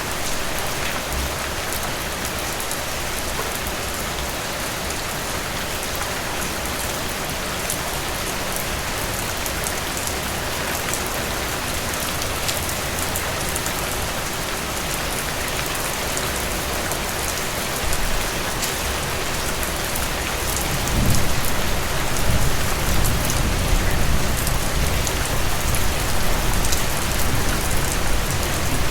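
Steady rain falling on a surface, with fine drop ticks through an even hiss. About two-thirds of the way in, a deeper low rumble swells in and the rain grows louder.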